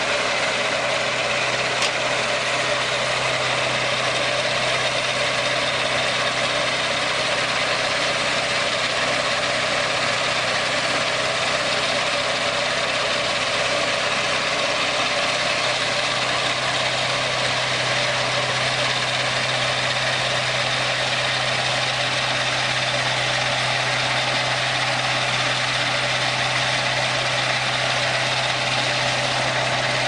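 Engine of a Turbo Sawmill swing-blade sawmill running at a steady pace, an unbroken drone with a constant low hum.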